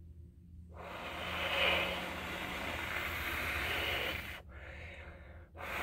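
A long steady inhale through a glass dab rig as a low-temperature dab of rosin is taken, an airy hiss lasting about four seconds. Near the end a strong exhale begins.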